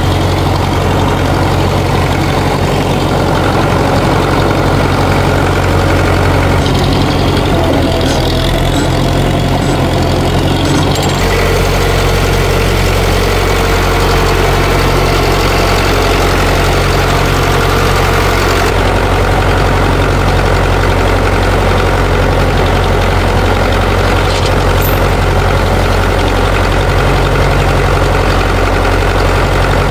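International B275 tractor's four-cylinder diesel engine running steadily, with abrupt shifts in tone about a third and two-thirds of the way through.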